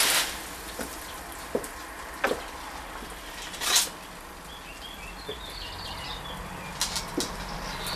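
A garden hose spray nozzle's hiss cuts off at the start, leaving a quieter outdoor lull with a few sharp clicks and knocks. About five seconds in, a small bird twitters for a second or so.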